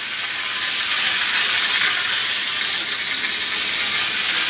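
Vintage Hornby Dublo three-rail model locomotive running around a loop of track, making a steady hissing whir from its electric motor and its wheels on the metal rails.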